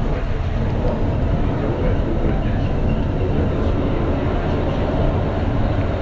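Paris Metro train running: a steady, even rumble with no distinct knocks or tones.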